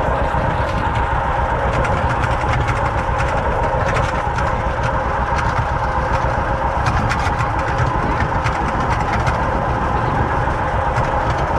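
Vintage John Deere tractor engine running steadily under load as it pulls a wagon.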